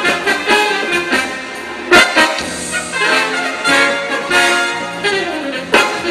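Live band playing a frevo, saxophones and trombone carrying the melody together. Loud percussive accents cut through about two seconds in and again near the end.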